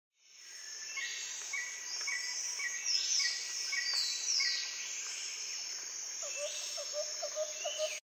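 Bird and insect ambience: a steady high insect drone with bird chirps repeating about twice a second, a few falling calls around three to four seconds in, and a run of quick lower calls near the end. It fades in over the first second.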